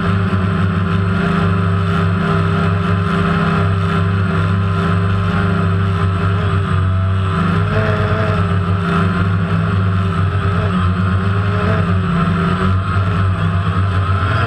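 DJI Phantom quadcopter's motors and propellers running in flight, picked up by the camera carried on the drone: a loud, steady hum made of several tones, with the higher ones wavering slightly in pitch in the second half as the motor speeds change.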